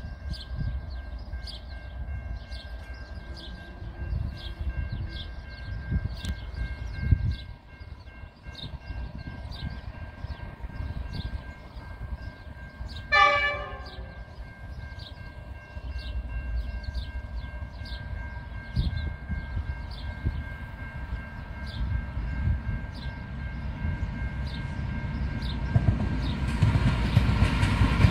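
Pacific National freight train's diesel locomotives approaching: a short horn blast about halfway through, then the locomotive rumble growing steadily louder near the end. Wind rumbles on the microphone, with a regular high ticking about twice a second.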